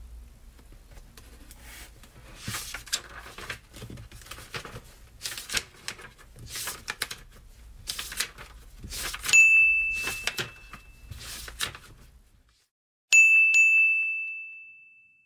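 Pencil scratching on a book page in short strokes, then a timer chime dings twice, a high ringing tone that fades out over a second or two each time, signalling the end of a pomodoro work session and the start of the break.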